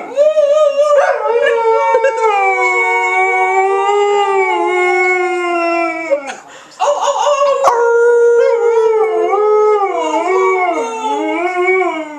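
Alaskan Malamute howling: two long, wavering howls with a short break a little after six seconds in. People howl along with it.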